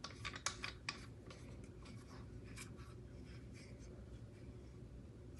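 Triangle knob being screwed down by hand on a mini trampoline's handrail leg: faint scratchy clicks and rubbing, several close together in the first second, then a few scattered ones over a low steady hum.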